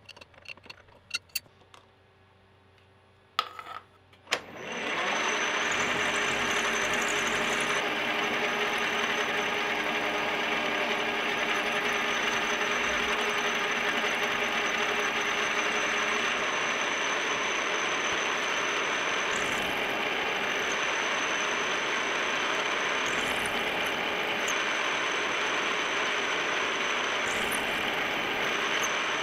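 A few sharp metal clicks of wrenches on a collet nut, then about four seconds in a milling machine spindle starts and an end mill cuts into the inside of a toothed belt pulley. The cutting is a loud, steady noise with a constant high whine.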